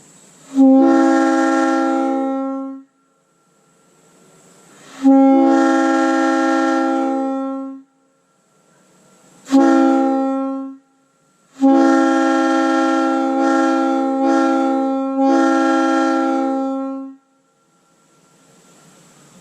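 A 1956 Leslie S-3L three-chime locomotive air horn blowing four blasts in a long, long, short, long pattern, the grade-crossing signal. Each blast is a steady multi-note chord that starts at full strength and sags in loudness before cutting off sharply. Faint air hiss rises between the blasts. The horn still sounds reasonably good despite years of gunk left in its bells.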